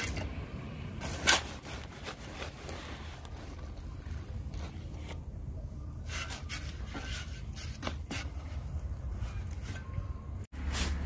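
A metal scoop scraping into a sack of dry granular material and tipping it into a plastic tub, giving a string of short scrapes and knocks, the loudest about a second in, over a steady low background rumble.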